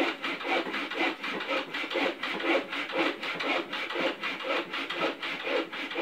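Hand saw cutting a slice across a piece of dead wood, in steady back-and-forth strokes about two a second.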